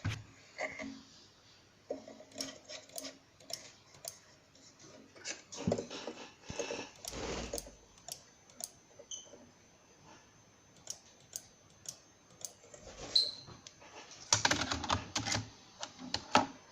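Typing on a computer keyboard: irregular key clicks, thickest about halfway through and again near the end.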